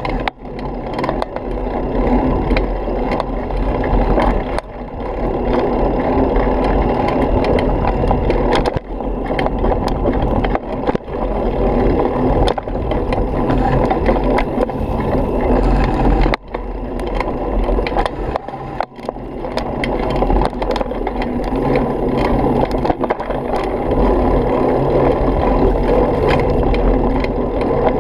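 Mountain bike rolling over rough dirt singletrack: a steady rumble and rattle of the bike and its handlebar-mounted camera, with wind on the microphone. The noise drops out briefly a few times.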